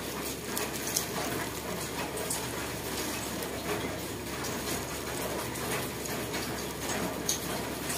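Gloved hands scooping dressed mushroom salad out of a pan onto a stainless-steel platter: faint rustling and scattered light clicks over a steady background hiss.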